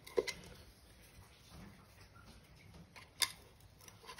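Chisel blade prising at a Defender power steering pump's casing: two short, sharp metal clicks about three seconds apart, the second louder, with faint handling noise between.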